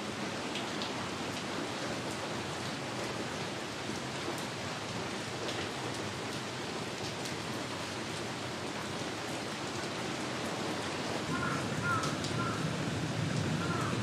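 Steady rain falling, an even hiss with scattered drops ticking, growing a little louder near the end. A few faint short chirps near the end.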